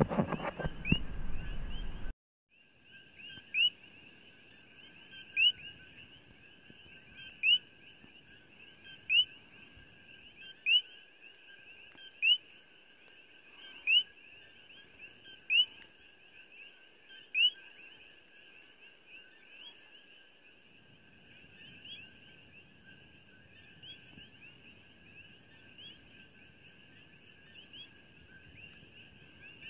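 Night chorus of coqui frogs: a steady bed of high calls, with one nearby frog calling loudly about every second and three-quarters until about 17 seconds in, then more faintly. A loud rushing noise fills the first two seconds and cuts off abruptly.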